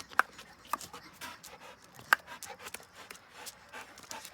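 A dog moving about: irregular sharp clicks and taps, the loudest about two seconds in.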